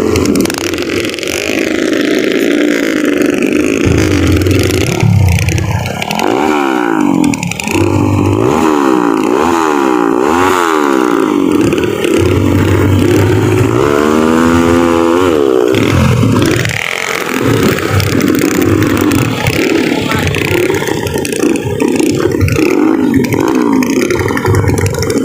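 Several motorcycle engines revving hard and repeatedly, their pitch sweeping up and down over one another.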